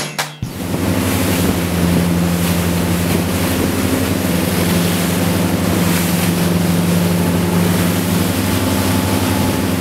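Bavaria Sport 34 HT motor cruiser running at speed through choppy water: a steady engine drone under the loud rush of spray and wash.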